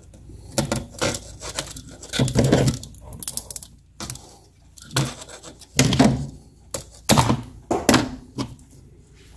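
Surgical scissors cutting through a stiff plastic shower door bottom seal: an irregular series of sharp snips and cracks as the blades bite through the plastic.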